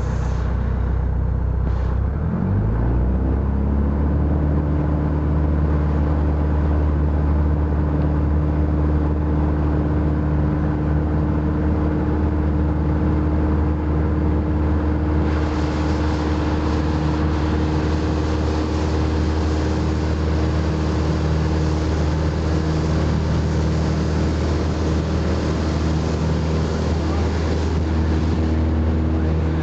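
Piper PA-28 Warrior's four-cylinder Lycoming engine and propeller, heard inside the cabin. The engine speeds up to full power about two seconds in, then runs steadily through the takeoff roll. Rushing air noise grows louder about halfway through as the aircraft gathers speed.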